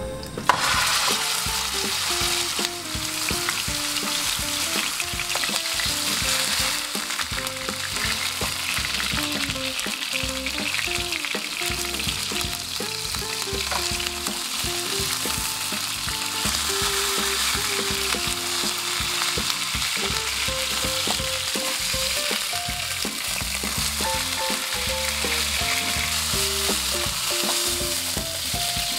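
Rolled beef joint searing in a hot nonstick frying pan: a steady fat sizzle that starts suddenly as the meat is laid in, about half a second in, and holds. Faint background music underneath.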